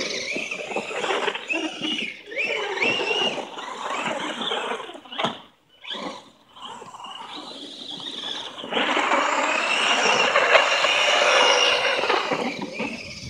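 Brushless electric motors of Axial SMT10 RC monster trucks running on 3S, whining up and down in pitch as the trucks spin their tyres through snow. The sound drops away briefly around the middle, then comes back louder and steadier for the last few seconds.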